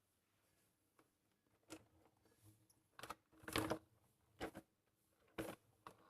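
Faint handling noise: six or seven short knocks and rubs as the plastic RC toy car is picked up and turned over, the loudest about halfway through.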